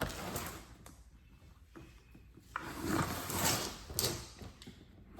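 Cardboard Funko Pop box and its packaging being handled and opened by hand: irregular rustling, light scrapes and small knocks, with a sharp tick about four seconds in.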